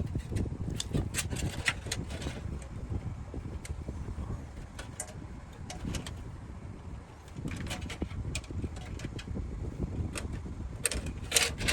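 Scattered clicks and rustles of PC cables and case parts being handled and routed, over a steady low rumble.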